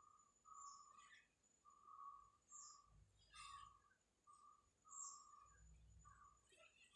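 Near silence: faint room tone with a soft high chirp repeating in short pulses, and a few faint scratches and soft thuds.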